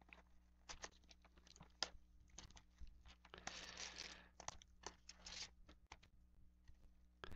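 Faint rustling and crinkling of packaging as a sealed box of trading cards is unwrapped and its foil card packs are pulled out and set down, with scattered small taps and clicks. The longest rustle comes about halfway through, with a shorter one soon after.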